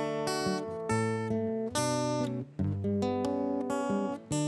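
Acoustic guitar playing slow strummed chords, a new chord struck roughly every second and left to ring.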